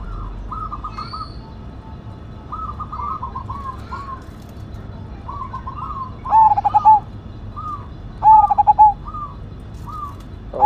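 Zebra dove (perkutut) cooing: repeated short phrases of quick, rolling coos, softer ones in the first half and two louder phrases about six and eight seconds in.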